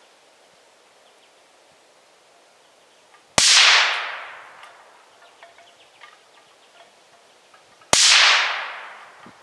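Two shots from a .17 HMR rimfire rifle fitted with a Dead Air Sandman-S suppressor, firing supersonic rounds, about four and a half seconds apart. Each is a sharp crack that fades away over about a second and a half.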